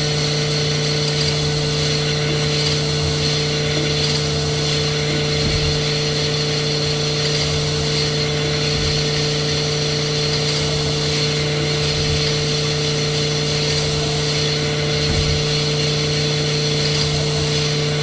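Sunnen SV-10 honing machine running diamond stones in an engine block's cylinder bore under honing oil, a steady machine hum with grinding noise.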